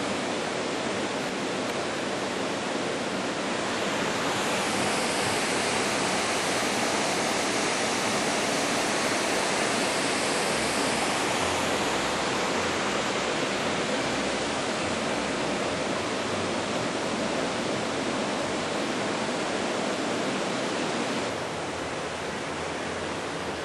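Steady rush of water pouring through a lock on a small river. It swells a little louder a few seconds in and eases slightly near the end.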